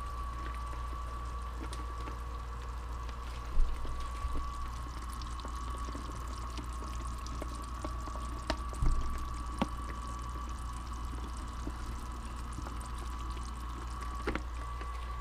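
Live rusty crayfish crawling over one another in a plastic tote, a scatter of small wet clicks and scratches of shell on shell and on plastic. Two louder knocks come about 3.5 and 9 seconds in. A steady hum with a thin high whine runs underneath.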